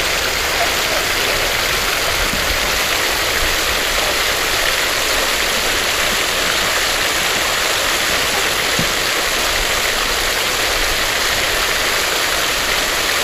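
Water from an outdoor fountain, a central jet and a ring of small arcing jets, splashing into its basin close by: a steady, even rush of water.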